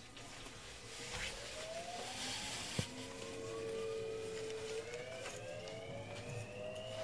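Hitachi IGBT VVVF inverter and traction motors of a JR West 223 series 2500 subseries electric train whining as the train accelerates. Several tones rise in pitch together, one holding steady for about two seconds before climbing again, over low running rumble, with one sharp click about three seconds in.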